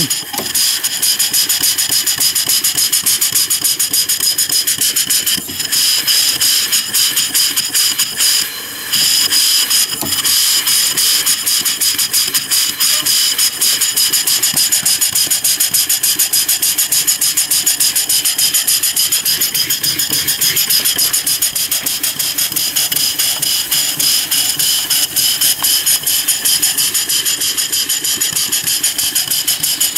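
Half-horsepower A.J. Weed marine steam engine running on compressed air, its exhaust beating rapidly over a steady hiss of escaping air. The running checks briefly about five seconds in and again near nine seconds while the engine is worked on its reversing lever.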